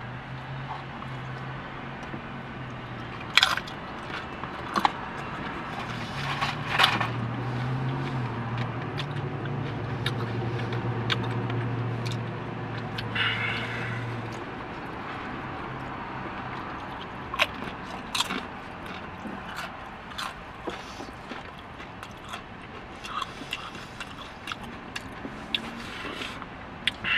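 A person eating from a takeout burrito bowl: scattered clicks and scrapes against the container, with chewing. A low steady hum runs through the first two seconds and again from about six to fourteen seconds in.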